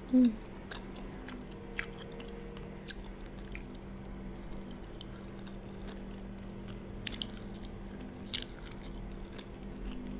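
Close-up chewing of soft fried dori fish meat, the batter gone soggy, with small wet mouth clicks and smacks every second or so over a steady low hum. A short hummed "mm" just at the start is the loudest sound.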